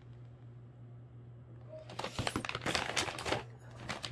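Plastic dog-treat pouches crinkling as they are handled, in a dense burst that starts about two seconds in and lasts about a second and a half, over a low steady hum.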